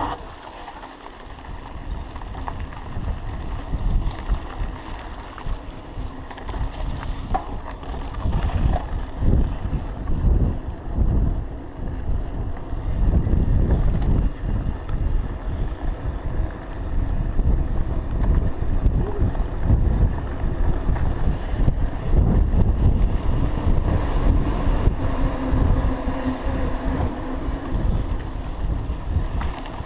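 Wind rushing over a GoPro's microphone on a mountain bike riding down a dirt singletrack, with a low rumble and irregular knocks as the bike bounces over the trail. It gets louder about halfway through.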